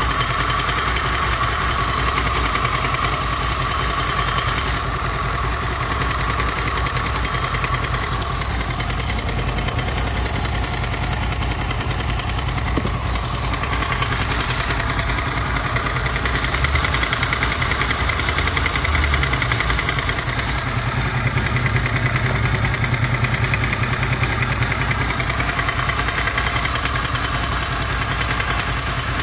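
Honda VFR800 VTEC's V4 engine idling hot with a warm, metallic knock running through the idle. The knock is practically absent when the engine is cold and comes mainly from the front cylinder on the right side.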